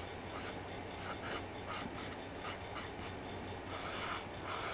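Pencil scratching on paper in short repeated sketching strokes, turning into a quicker, louder run of scribbling near the end.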